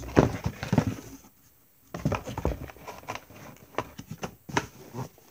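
Handling noise close to the microphone as a pair of sneakers and other gift items are moved about: irregular taps, knocks and rustles, with a short lull about a second and a half in.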